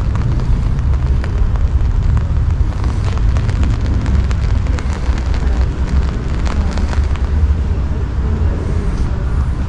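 Wind buffeting the camera's microphone: a loud, steady low rumble, with scattered sharp ticks over it.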